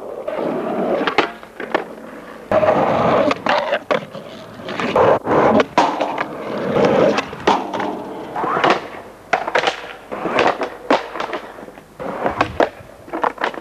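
Skateboard wheels rolling over asphalt and paving, broken again and again by sharp clacks of the board popping and landing as tricks are done.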